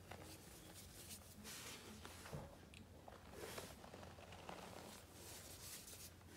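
Fine dusty powder being squeezed and crumbled by hand, giving a few faint, soft hissing crunches as clumps break and powder sifts off the fingers, over a low steady hum.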